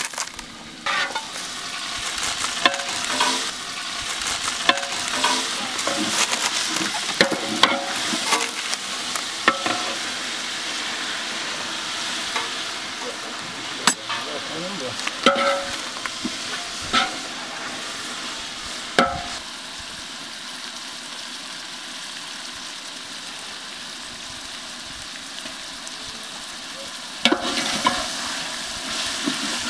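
Hot oil sizzling in a large metal pot over a wood fire, with a metal ladle repeatedly clinking and scraping against the pot through the first two-thirds. The sizzle settles to a steady hiss, then jumps louder near the end as more food goes into the oil.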